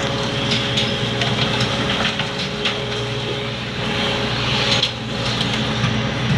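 Ship's engine and deck machinery running steadily, with a few sharp knocks over the hum.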